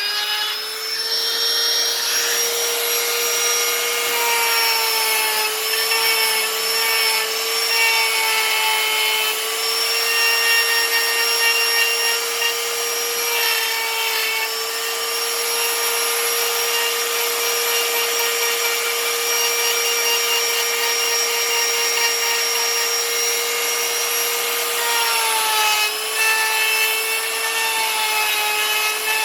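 A high-speed electric power carving tool running and cutting into wood, with a steady high whine whose pitch wavers slightly and dips briefly near the end.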